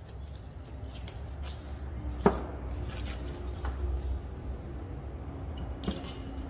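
Metal coilover shock parts being handled and fitted together by hand: scattered small clicks, a sharp knock about two seconds in and a ringing metal clink near the end, over a low steady hum.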